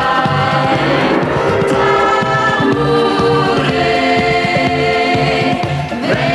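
Upbeat dance song played by a band, with a choir singing long held notes over it and no words of the lyrics.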